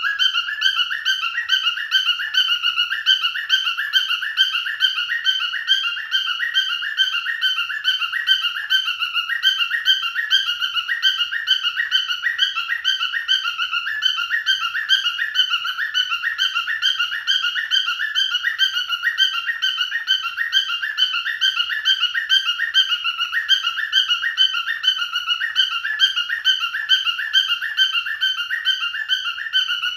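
Male cockatiel whistling: a loud, rapid warbling song of quickly repeated notes that carries on without a break.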